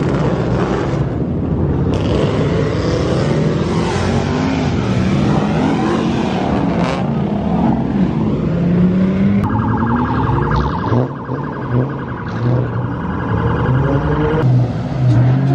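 Car engines running and revving, their pitch sliding up and down. From about two-thirds of the way through, a rapidly pulsing electronic alarm tone sounds over them for about five seconds, then stops.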